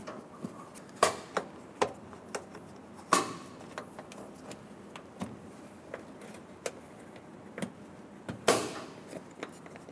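Metal over-centre latch clips on a Cat 140M grader's air cleaner housing cover being snapped shut by hand. It is a string of clicks and clacks, with sharper snaps about a second in, about three seconds in and near the end.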